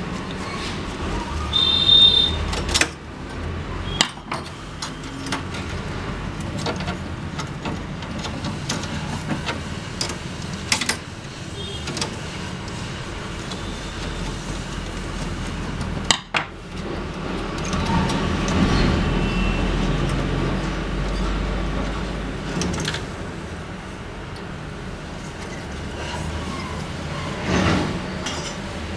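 Scattered clicks, knocks and clatter of plastic printer parts and screws being handled as an HP LaserJet M1005 printer is taken apart, over a steady low background rumble.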